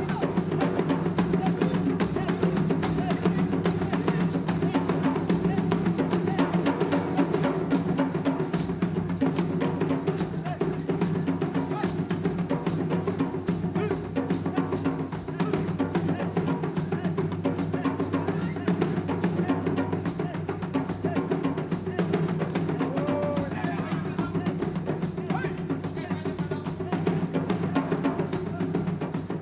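Music led by fast, dense drumming with a steady low bass under it, easing off near the end.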